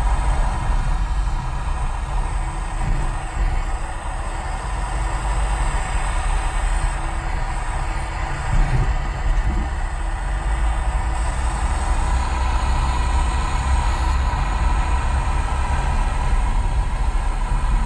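Road and engine noise inside a moving car: a steady low rumble with tyre hiss.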